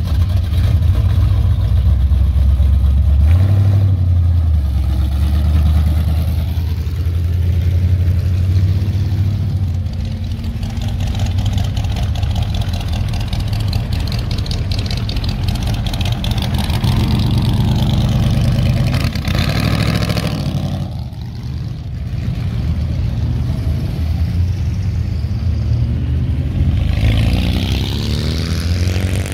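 Cars' engines and exhausts rising and fading as they drive past one after another: a Chevrolet El Camino pulling away, then a C4 Corvette's V8, with low rumbling throughout. Near the end an engine revs up with a rising pitch as the next car approaches.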